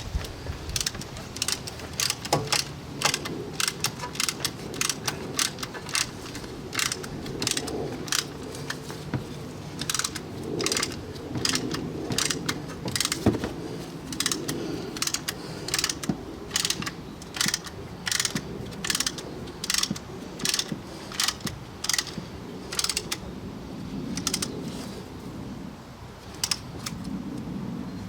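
Hand-operated brake caliper piston-press tool clicking over and over, about one to three sharp metallic clicks a second, as it pushes the pistons of a large multi-piston front brake caliper back into their bores.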